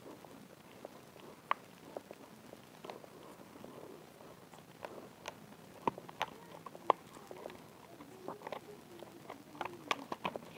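Clear plastic blister pack being handled and cut open with scissors: scattered small clicks and crackles of the plastic, with a few sharper snaps around six seconds in and again near the end.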